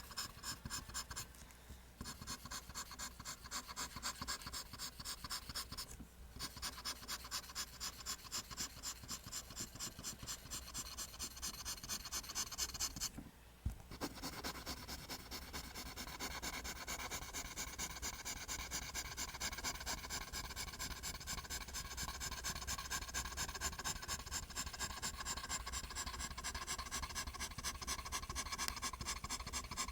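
Pencil drawing lines on paper: quick, even scratching strokes, about three a second, broken by short pauses a few times.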